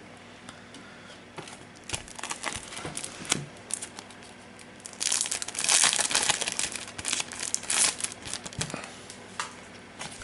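Clear plastic shrink-wrap around a deck of game cards crinkling and tearing as it is pulled open by hand. It starts with scattered crackles, is densest and loudest about halfway through, then tails off into lighter crackles.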